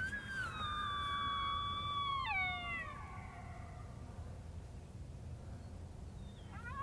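Coyote howls from a predator call: one long howl that rises quickly, holds steady, and drops away a little over two seconds in, then a second howl rising near the end.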